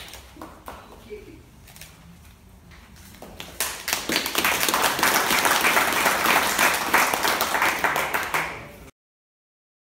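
Audience applauding, starting about three and a half seconds in and cutting off suddenly near the end.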